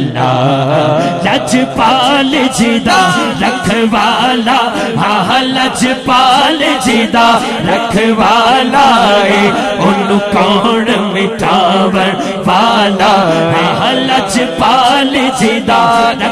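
Devotional chanting by a large crowd of men, many voices chanting together in unison with a lead voice, the melody rising and falling without a break.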